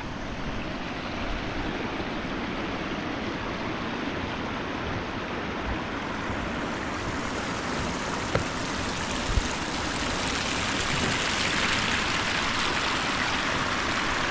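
Rushing stream water: a steady hiss that grows louder from about seven seconds in and swells again around ten seconds. Two soft thumps come a second apart near the middle.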